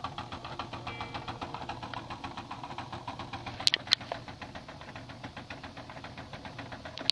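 Small battery-powered motor of an automatic chicken coop door running with a rapid, even clicking: the drive wheel's cogs skipping, so the door does not rise. Two sharp clicks a little before the middle.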